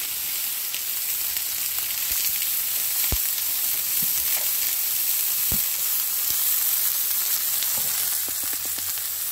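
Zucchini and asparagus sizzling in oil in a hot pan: a steady high hiss with scattered small pops, and a couple of dull knocks about three and five and a half seconds in.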